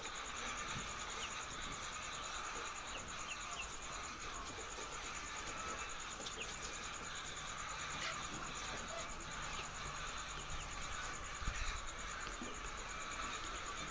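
Steady, high-pitched insect trilling with a few faint bird chirps, and one brief low thump late on.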